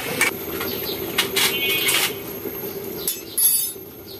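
Metal lid being set onto an aluminium cooking pot: a series of sharp metallic clinks and clanks with brief ringing, over a steady low hum.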